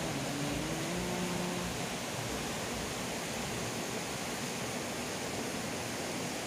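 Steady rushing of river water, an even hiss with no breaks. A faint wavering hum sits under it for the first couple of seconds.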